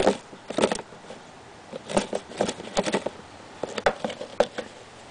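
Thin clear plastic tub being handled and tilted: several bursts of short plastic clicks and crackles.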